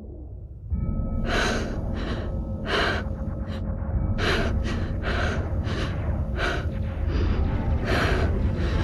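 A person breathing quickly and heavily, short sharp breaths about one or two a second, over a low steady rumble that comes in just under a second in.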